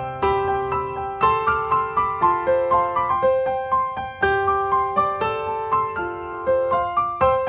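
Background piano music: a slow, calm melody of single struck notes that ring and fade, about one or two notes a second.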